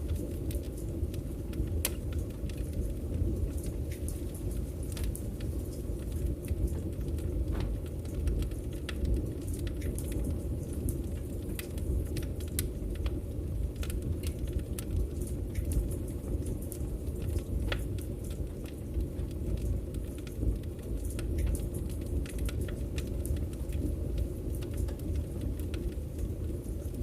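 Wood fire crackling, with a steady low rumble of the flames and frequent scattered sharp pops and snaps.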